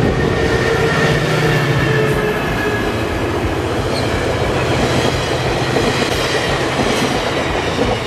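Coaster commuter train passing: the diesel locomotive goes by first with steady engine tones, then the double-deck coaches roll past with an even rumble of wheels on the rails.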